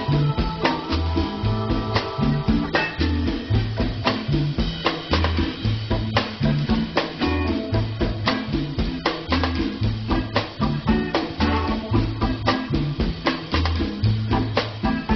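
Music with a steady drum-kit beat over a pulsing bass line.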